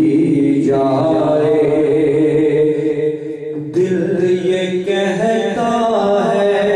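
A man singing an Urdu ghazal in long, drawn-out ornamented notes, with a short break a little past three seconds in before the next phrase starts.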